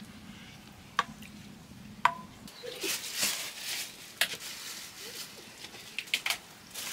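Scattered light clinks of metal dishes and a spoon, single sharp clicks a second or more apart, with a brief shuffling rustle of footsteps in the middle.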